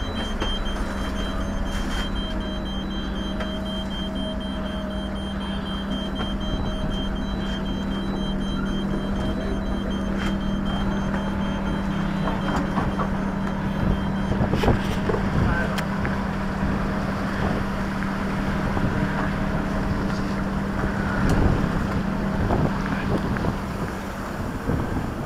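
A steady low engine drone heard from inside a sailing yacht's wooden wheelhouse, over a hiss of wind and sea. A faint, rapid, high electronic beeping pulses through about the first half.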